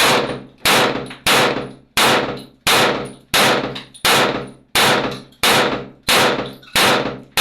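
A firearm fired about eleven times in a steady rhythm, one shot every two-thirds of a second. Each shot is loud and sharp with a ringing tail that dies away before the next.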